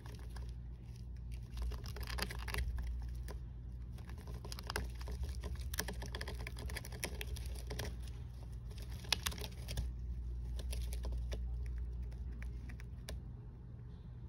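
Hamster scratching and digging at the corner of its enclosure in wood-shaving and paper bedding: a rapid patter of small scratches and rustles, busiest in the middle and thinning out near the end.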